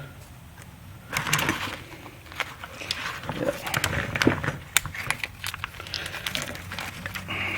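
Small sharp clicks, scratches and rustles of hands and a small tool working a wire terminal out of a turn signal switch's plastic connector block, starting about a second in.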